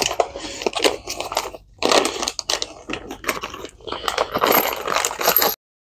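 Hands rummaging through small bolt hardware, a crunchy rustling clatter in several bursts that cuts off suddenly near the end.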